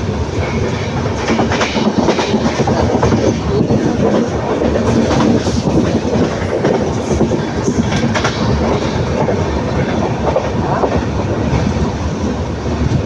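Passenger train running at speed, with the wheels clattering over the rail joints above a steady rumble of the coaches.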